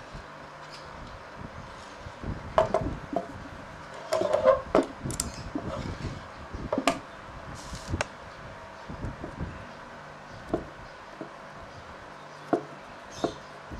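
Knocks and clicks of a removed carburetor being handled and turned over on a wooden table, its metal parts tapping the wood. The knocks come in a busy cluster in the first half, then thin out to a few single clicks.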